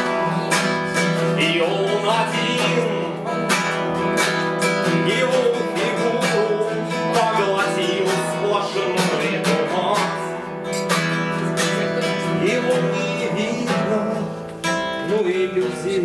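Acoustic classical guitar played solo, with a steady stream of plucked and strummed chords and a melody moving over them.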